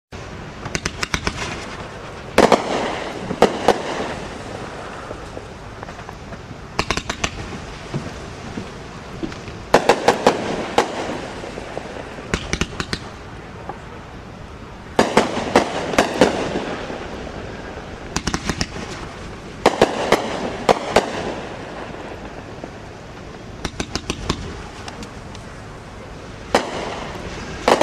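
A 500-gram aerial repeater cake firing its shots: clusters of sharp bangs from launches and shells breaking, coming every two to three seconds, with a hiss between the clusters.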